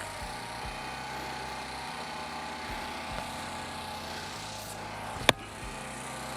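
A steady low drone runs throughout, with one sharp wooden knock about five seconds in: an axe striking firewood during splitting.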